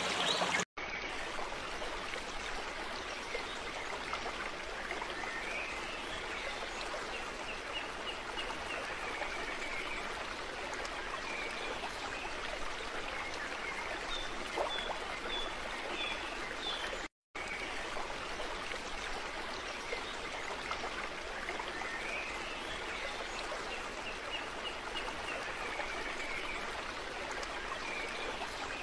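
Steady rushing of running water, with two runs of faint high chirps over it. The sound cuts out for a moment about a second in and again a little past halfway.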